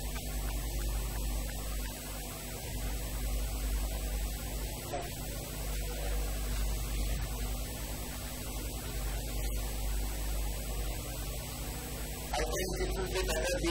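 Steady electrical mains hum with an even hiss above it. Near the end a louder pitched sound comes in.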